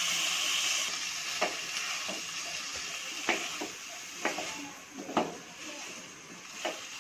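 Hot oil and spiced masala sizzling in a metal pot as freshly added bean seeds are stirred in with a wooden spatula. The spatula clicks against the pot now and then. The sizzle dies down over a few seconds as the beans take the heat.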